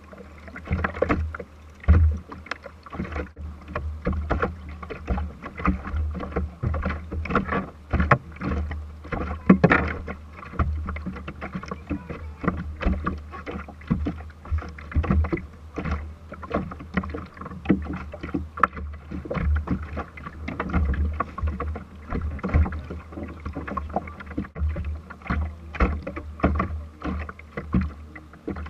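Small waves slapping and knocking irregularly against the hull of a small fiberglass boat that is not under power, over a steady low rumble.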